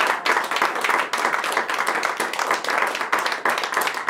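A small audience applauding, many hands clapping at once in a dense, uneven patter.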